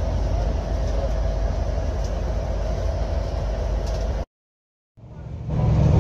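Bus engine running at low speed, heard from inside the cabin as a steady low drone. About four seconds in it cuts out to silence, then a louder engine drone fades back in.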